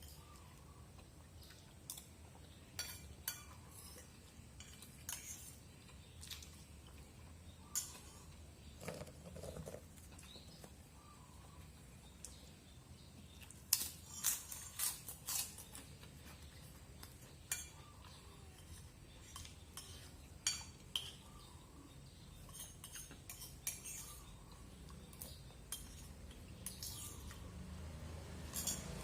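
Irregular light clicks and clinks of small hard objects, coming every second or two with a quick run of them about halfway through, over a faint low hum.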